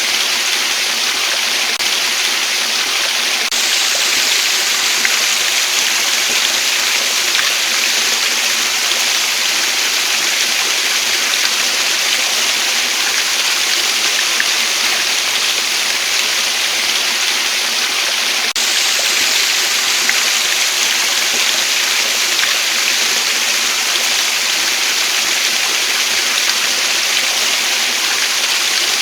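Waterfall: a steady, unbroken rush of falling water, strongest in the hissing upper range.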